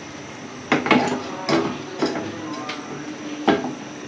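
Irregular knocks and clatter of kitchen cookware and utensils being handled, about six sharp strikes, the loudest about a second in and again near the end.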